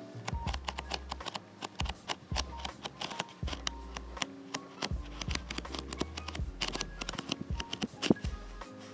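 Pages of a manga paperback being flipped through by hand: a quick, irregular run of crisp paper flicks and rustles, with one sharper flick near the end. Background music with held notes and a low bass plays under it.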